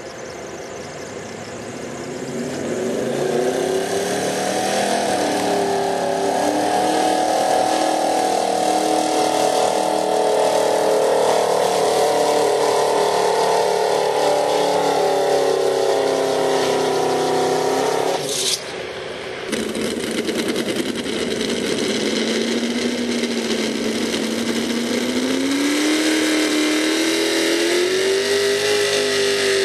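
Gasoline pickup truck engines at full throttle pulling a weight-transfer sled. The first engine revs up over the first few seconds and holds high and steady. After a sudden break about two-thirds through, another truck's engine climbs slowly in pitch.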